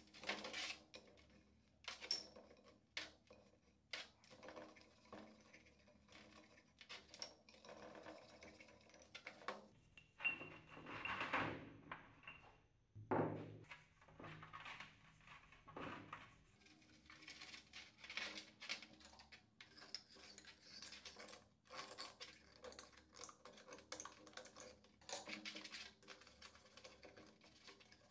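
Faint, irregular scrubbing of a small brush on motorcycle fork tubes, with scattered light knocks and clatters as the tubes are picked up and set down in a metal tray.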